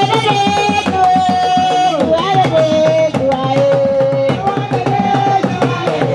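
Hand drums beaten in a quick, dense rhythm, with a melody in long held notes over them that steps down in pitch now and then.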